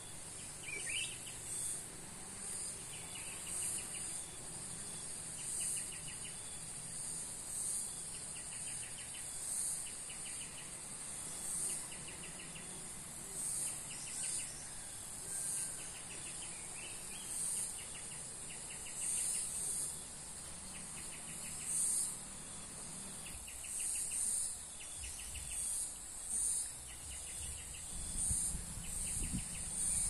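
Insects chirring in a steady outdoor chorus: a high buzz that swells about every two seconds, with a second, lower trill in short runs of quick pulses. A low rumble comes in near the end.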